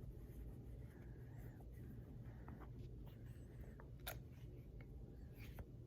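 Faint clicks and taps from handling the revolver and cleaning gear, the sharpest about four seconds in, over a low steady hum.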